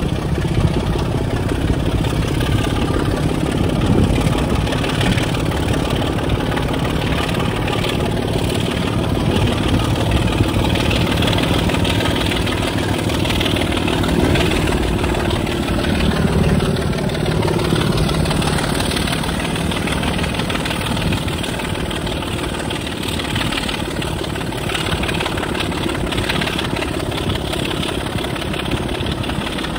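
Class 25 diesel locomotive D7659's Sulzer six-cylinder engine running steadily under power, heard from a coach window along the train, mixed with the rush of air and rail noise.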